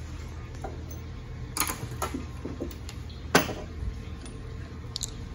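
Metal transmission parts and hand tools knocking and clacking on a steel workbench during an automatic transmission teardown. There are a few separate sharp knocks, the loudest about three and a half seconds in, over a steady low shop hum.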